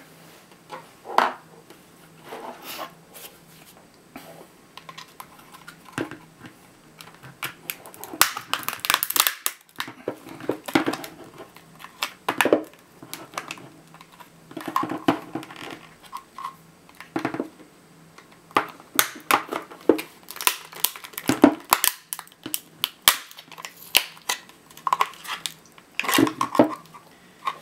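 Plastic case of a laptop battery pack being pried open along its seam with a screwdriver: irregular cracks, snaps and scraping clicks, coming in clusters with short pauses between.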